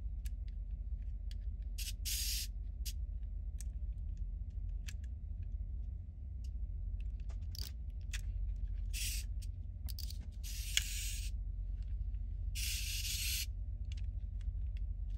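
Scattered plastic clicks and short scraping, hissing bursts from a toy's turret extension arm being worked by hand, over a steady low hum. The arm is stiff to deploy, its gears at the bottom dry and in need of lubrication.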